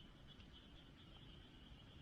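Near silence: quiet outdoor ambience with a faint, steady high-pitched hum.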